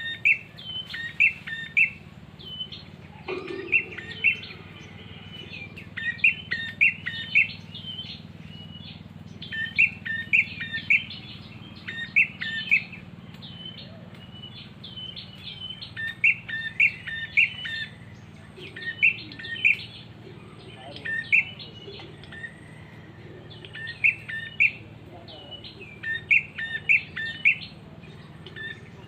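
Prinia (prenjak) calls: quick groups of sharp, hooked chirps repeated every second or two, over a steady low hum. There is a dull knock about three and a half seconds in.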